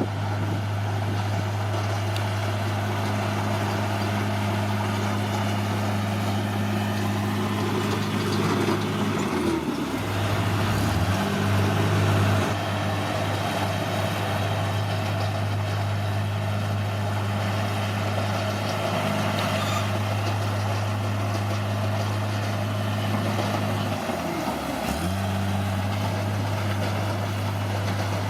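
Bulldozer diesel engine running steadily, its pitch sagging briefly and recovering twice, about ten seconds in and near the end.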